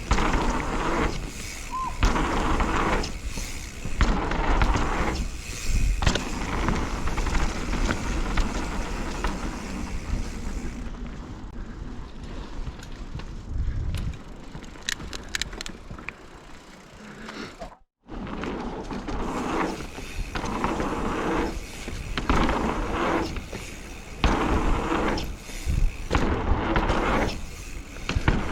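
Knobbly tubeless mountain bike tyres rolling over a dirt woodland trail, with the bike rattling and knocking over bumps. The sound surges and eases with the terrain, goes smoother for a few seconds in the middle, and cuts out for a moment about two-thirds through.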